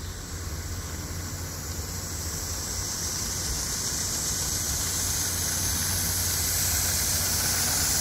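Car engine and road noise heard from inside the cabin: a steady low hum under a rushing hiss that grows gradually louder.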